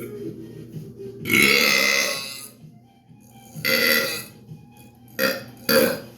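A man burping on purpose, four loud belches: a long one about a second in, the loudest, another in the middle, then two short ones close together near the end.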